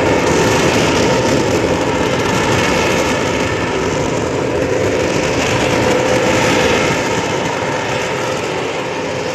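Blast furnace at the IISCO steel plant letting off a huge, loud, steady rushing noise with a steady hum running through it, easing slightly near the end.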